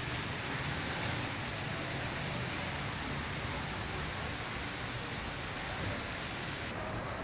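Steady outdoor rushing noise with a low rumble beneath it. The higher hiss drops away abruptly near the end.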